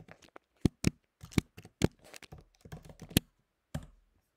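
Computer keyboard being typed on: about a dozen separate key clicks at an uneven pace, the last a little before the end.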